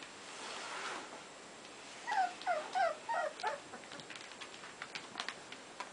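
Month-old American bully puppies play-fighting: a run of about five short, high yelps, each falling in pitch, about two seconds in. Scattered small clicks and scuffles follow.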